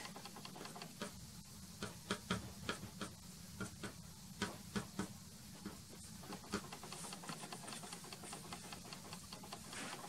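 A soft pastel stick dabbing and scratching on pastel-primed matte board: irregular light taps, a few a second, over the first six seconds or so, then softer brushing strokes.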